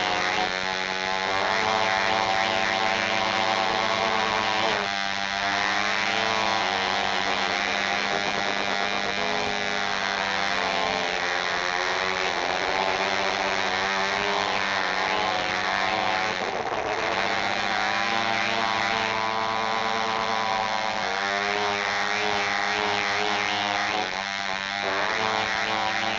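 Cartoon sound effect: a steady, buzzing, motor-like hum whose overtones waver up and down.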